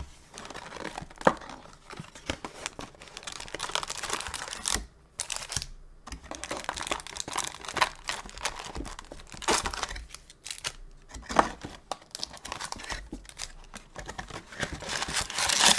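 Wrapped trading-card packs and the cardboard retail box crinkling and rustling as the packs are pulled out by hand, with frequent sharp crackles and scrapes of cardboard; loudest just before the end.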